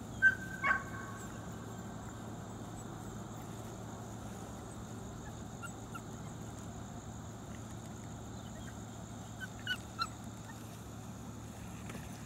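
Puppies giving two short, high-pitched yips near the start, then a few faint chirping yips about ten seconds in, over a steady low hum.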